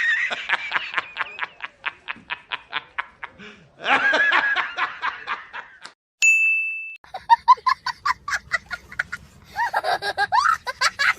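Laughing sound effects: rapid, high-pitched cackling laughs in quick pulses, one clip after another. About six seconds in, a short steady beep separates one laugh from the next.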